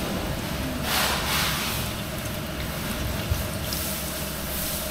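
Steady workshop background noise, a low hum with hiss, swelling briefly about a second in, with a small click a little past three seconds.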